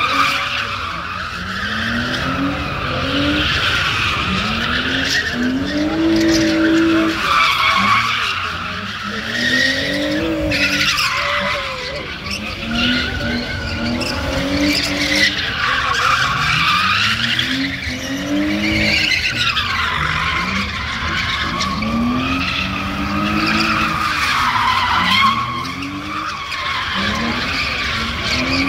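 BMW E46 coupe doing donuts: its spinning rear tyres squeal without a break, and the engine revs rise and fall over and over, about every couple of seconds.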